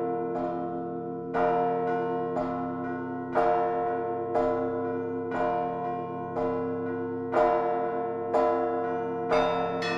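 Orthodox church bells ringing. Bells are struck about once a second, often in quick pairs, over the sustained hum of the larger bells.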